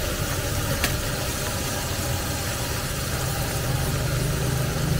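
Rice noodles and vegetables stir-frying in a blackened wok over a gas burner: a steady burner roar with a low hum under the sizzle, and one sharp click of the metal spatula about a second in.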